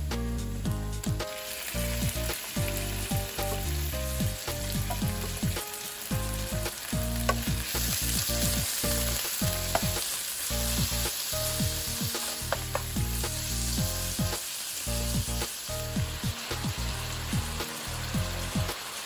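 Thinly sliced beef sizzling in hot oil with garlic and ginger in a nonstick wok. The sizzle jumps up about a second in as the meat goes into the pan, then carries on steadily while it is stir-fried with a wooden spatula, with a few sharp knocks of the spatula against the pan.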